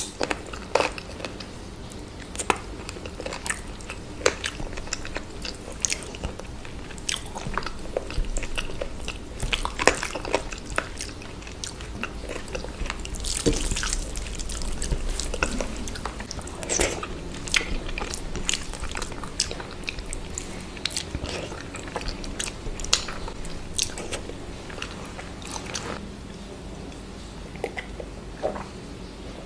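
A person chewing and biting chicken and rice close to the microphone, with many short, irregular clicks and crunches.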